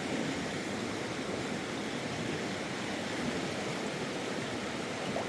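Steady rushing of a flowing stream, an even wash of water noise with no breaks.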